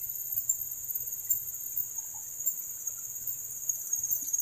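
A steady, high-pitched insect chorus that drones on without a break.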